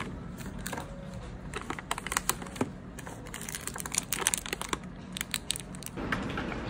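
Irregular light clicks and crinkles from snack packets being picked up and set down on a desk, mixed with computer keyboard typing.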